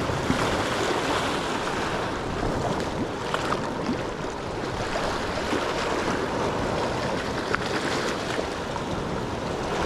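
Sea surf washing steadily against a rocky shore, with wind, and a few faint ticks.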